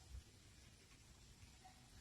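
Near silence: faint room tone, with one soft low bump just after the start.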